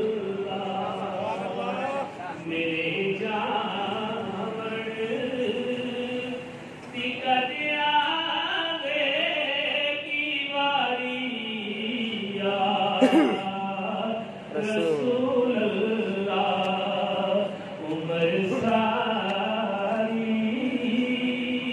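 A man's voice reciting a naat: unaccompanied devotional singing in long, drawn-out melodic phrases with held notes.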